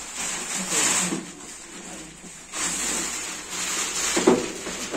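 Rustling and scraping of a TV's plastic wrap, packing sheet and cardboard as the set is handled and lifted out of its packing, in two long stretches, with a brief bump near the end.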